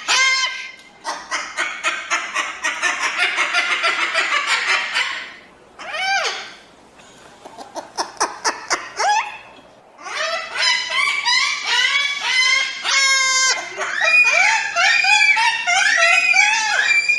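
Crested cockatoo calling: a run of fast, harsh chattering, a few sharp clicks, then a long series of short squawks that rise and fall in pitch.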